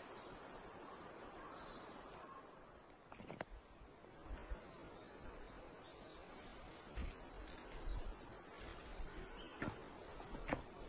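Quiet forest ambience with brief high chirping calls. From about three seconds in come the irregular footsteps of someone walking over the forest floor, with a few sharp clicks near the end.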